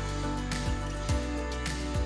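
Background music with a steady beat and sustained synth-like tones.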